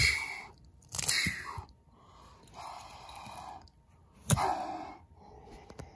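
A person's breathy vocal huffs and sighs, about five of them roughly a second apart. The first and fourth start sharply and are the loudest.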